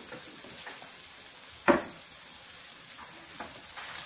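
Pork, chilies and spices frying gently in a wok, a faint steady sizzle. About a second and a half in comes one sharp knock, much louder than the sizzle.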